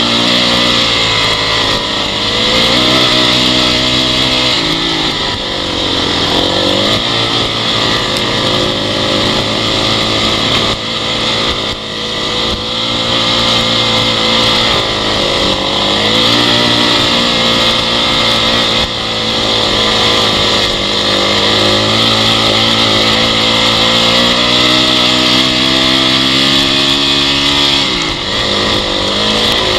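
Honda CRF dirt bike's single-cylinder four-stroke engine running under way, its revs rising and falling several times with the throttle, with a steady hiss of wind and riding noise over it.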